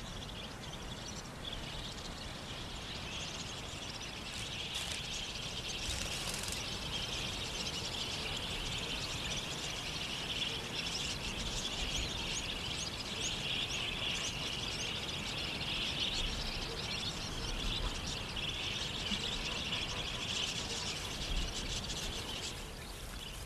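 A flock of wild budgerigars chattering: a continuous stream of quick, high overlapping chirps and warbles.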